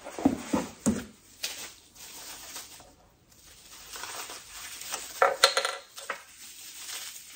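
Paper and cardboard rustling as small wrapped pieces are lifted from a cardboard box and unwrapped, with light knocks and clinks of hard pieces: a few in the first second and a cluster about five and a half seconds in.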